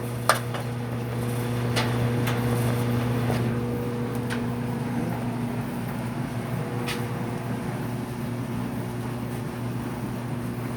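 Laundry machine running after being started on a 60-minute cycle: a steady, even hum with a few light clicks and knocks.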